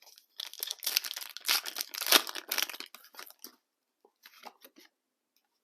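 Foil booster-pack wrapper being torn open and crinkled: a dense run of crackles and rips lasting about three seconds, followed by a few faint rustles.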